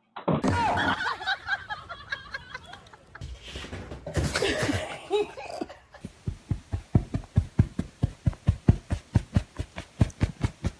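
People laughing, then a fast, regular thumping of about four knocks a second.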